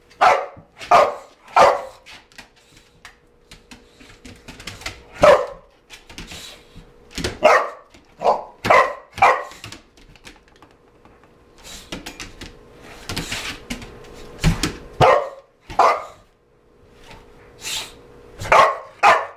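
Boxer dog barking repeatedly: short sharp barks, singly and in quick pairs, with irregular pauses of a second to a few seconds between them.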